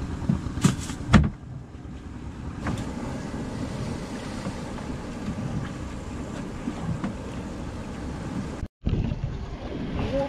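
Wind on the microphone and sea water around a small boat at sea, a steady low rumbling noise, with a few sharp knocks about a second in.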